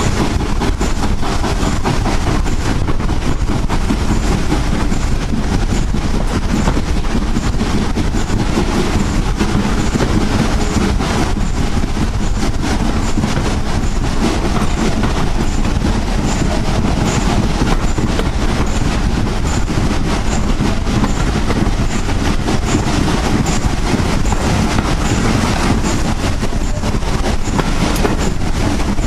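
GWR 4575-class 2-6-2 Prairie tank locomotive 5552 working hard up a steep gradient with its train, running steadily loud, with a faint regular ticking about once a second.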